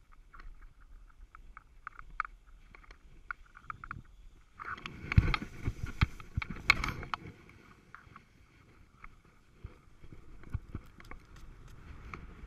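Snowboard sliding over packed, chopped-up snow, a low scraping with scattered small clicks. About four and a half seconds in comes a louder stretch of crunching snow and knocks lasting a few seconds, as the rider goes down in the snow, then the quieter sliding resumes.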